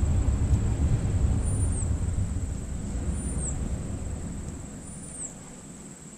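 Low rumble of a distant engine, fading away over about five seconds. A faint high steady tone with a short sweep about every two seconds runs under it.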